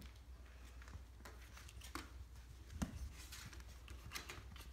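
Puppies moving about on towels and the pen floor: faint, scattered scratching and rustling of small paws and cloth, with one brief low sound about three seconds in.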